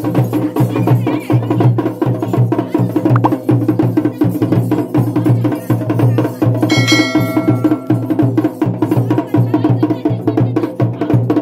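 Traditional music driven by fast, rhythmic drumming, with a bell ringing briefly about seven seconds in.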